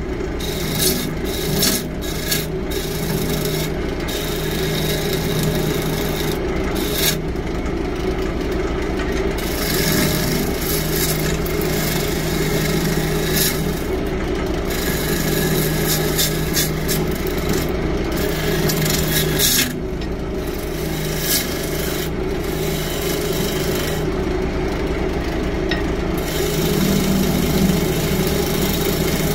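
Wood lathe motor humming steadily while a hand-held turning tool cuts a spinning yew blank, throwing off shavings. The scraping, hissing cut comes and goes as the tool is eased off and worked back along the piece.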